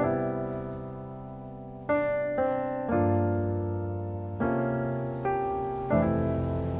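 Background music: slow piano chords, each struck and left to fade, a new one every second or so.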